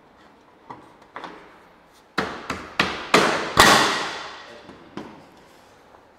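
A run of hammer knocks during hand rail installation. After two light ones, a quicker, louder group of blows comes about two seconds in; the loudest one rings out for about a second. A lighter knock follows near the end.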